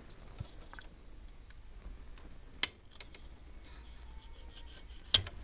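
Quiet handling of a Macintosh Classic II's metal back shield as it is taken off, with two sharp clicks, one about halfway through and one near the end.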